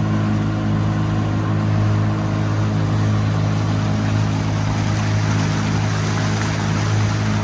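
Motorboat's outboard engine running steadily at speed, with a continuous rush of water and wind past the boat.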